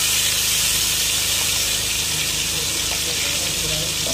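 Fish pieces frying in hot ghee on a large iron tawa, giving a steady loud sizzle as a fresh piece is laid into the fat.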